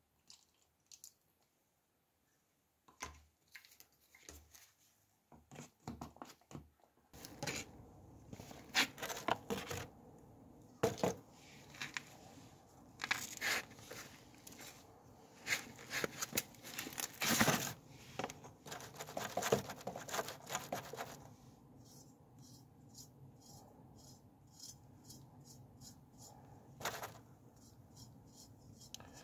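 Handling noises from plastic tubs and a tray: scattered clicks, then a busy stretch of loud clicks, crinkles and scrapes in the middle. Near the end come quick, fainter, regular scratches as a brush works the acid solution over the metal dish.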